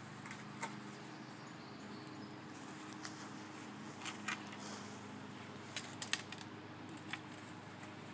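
Scattered light clicks and knocks from handling at an opened grinder pump basin, as the lift rope is tied off and the basin lid is brought over, over a steady low hum.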